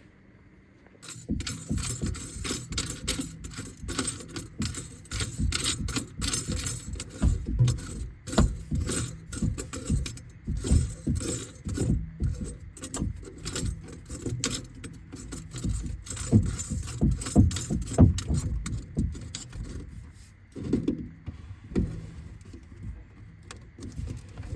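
Irregular metallic clinking and rattling, like tools and metal hardware being handled. It starts about a second in and thins out near the end.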